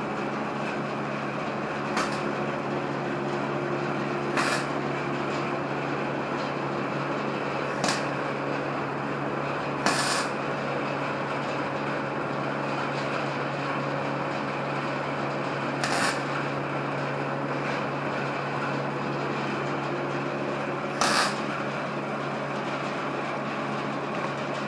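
A steady mechanical hum with a haze of noise, broken six times by brief, sharp scraping strokes spread through the stretch.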